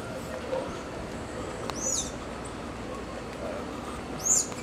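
A bird calls twice, each a short, high whistle that sweeps up and back down: once about two seconds in and again, louder, near the end.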